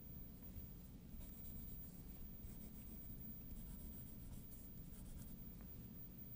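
Pencil scratching on sketchbook paper in several short runs of strokes as lines are drawn and darkened. The strokes are faint, over a low steady hum.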